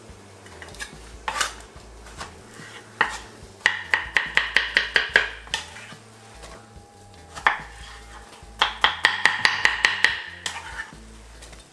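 Kitchen knife slicing ripe plantain on a wooden chopping board: two quick runs of sharp knocks, about six a second, as the blade strikes the board, with a few single knocks between.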